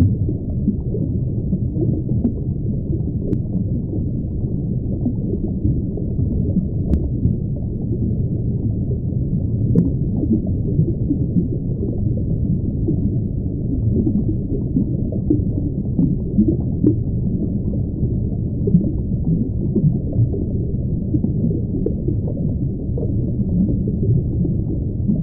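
Underwater ambience sound effect: a steady, muffled low rumble of water, with all its sound below about 1 kHz and a constant fluttering texture.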